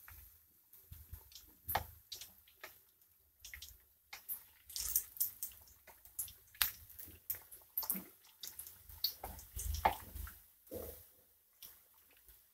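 Battered green chillies (mirchi vada) frying in hot oil in a pan: irregular bubbling and crackling, with occasional knocks and scrapes of a metal spoon against the pan as the fritters are moved.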